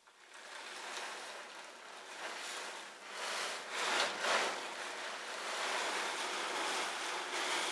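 A large plastic tarp rustling and flapping as it is pulled over and waved around a horse, swelling louder about three and four seconds in.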